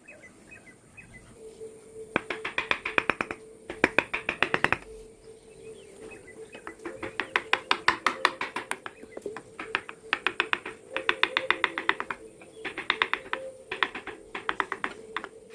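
Rapid tapping of a mallet on a carving chisel cutting into teak, at about ten taps a second, in bursts of one to two seconds with short pauses between. A faint steady tone runs underneath.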